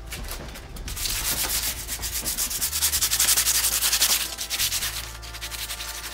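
Sandpaper rubbed by hand along a rusty, painted bicycle fork in quick back-and-forth rasping strokes, stripping rust and paint down to bare metal. The strokes grow louder about a second in and ease off after about four seconds.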